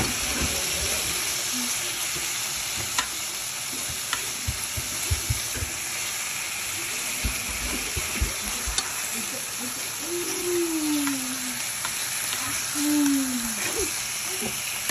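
Thin slices of meat sizzling in a nonstick frying pan with a steady hiss, while a wooden utensil pushes and turns them, giving a few light clicks and bumps against the pan. Two short falling tones come after about ten seconds.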